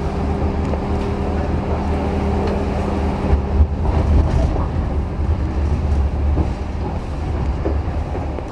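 Charleroi light-rail tram running along the track, heard from inside the driver's cab: a steady low rumble and hum with two steady tones, one dropping out about halfway through and the other near the end.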